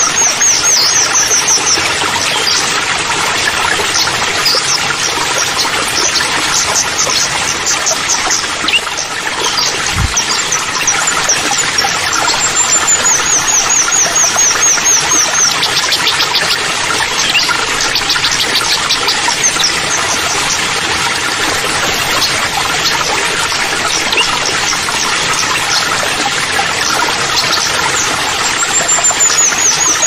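Steady rush of a waterfall splashing into a pool, with small birds singing over it: a high, rapid trill of quick descending notes that comes back every several seconds, and scattered chirps. A single low thump about ten seconds in.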